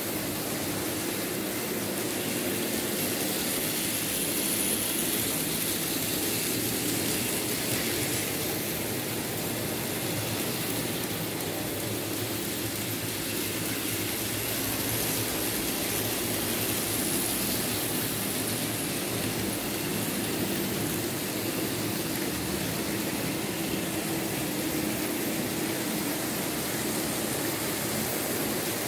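Märklin H0 model trains running on the layout, among them a 1962 BR 23 steam locomotive model hauling open freight wagons: a steady whirr of the locomotive motors and wheels rolling on the track.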